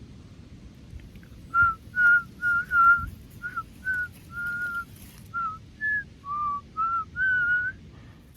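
A person whistling a short melody, about a dozen clear notes that step up and down in pitch, starting about a second and a half in and ending shortly before the close.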